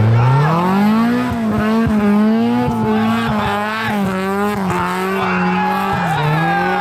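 Rally car engine revving up in about a second and held at high revs as its wheels spin in snow while the car is pushed free of a snowbank; the revs dip briefly near the end and climb again as it pulls away.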